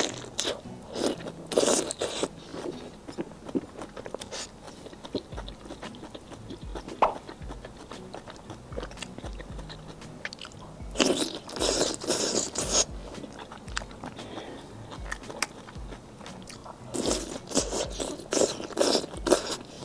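Close-up mouth sounds of a person eating: biting and chewing, first a piece of soup-soaked fried bean curd skin, then a chicken foot near the end. The wet, clicking chewing comes in three bursts, at the start, about halfway through and near the end, with quieter chewing between them.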